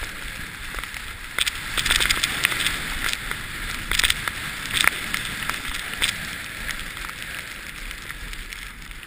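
Snow scraping under a rider's edges on a packed slope while sliding downhill, with wind noise on the camera microphone and scattered sharp scrapes and knocks. The sound eases off over the last few seconds as the rider slows.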